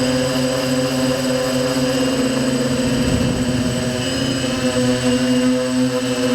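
Quadcopter's electric motors spinning 5045 propellers, a steady multi-pitched buzzing hum. The pitch wavers about two to four seconds in as the motors change speed, then steadies.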